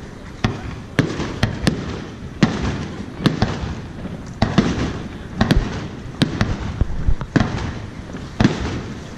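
Aerial fireworks shells bursting in a rapid, irregular run of more than a dozen sharp booms, each trailing a rumble.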